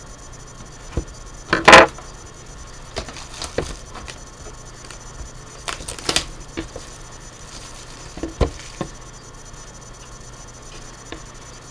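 A cardboard trading-card hobby box being unsealed by hand: its plastic wrap crinkling and tearing, with scattered taps and scrapes on the box. The loudest tear comes just under two seconds in, and a pair of sharper ones about six seconds in.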